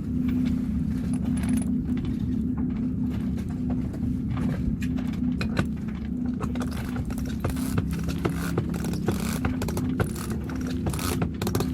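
Winch hoisting a person up a sailboat's mast on a line: a steady low hum under a continuous run of sharp clicks and rattles.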